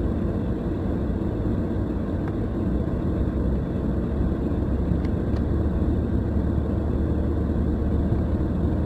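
Steady low rumble of a car's engine and tyres heard from inside the cabin while driving slowly on a snow-covered road, with a couple of faint clicks about halfway through.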